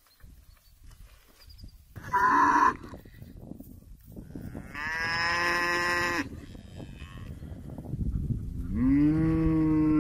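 Cows mooing three times: a short high call about two seconds in, a longer call around five seconds, and a deep moo near the end that rises and falls in pitch.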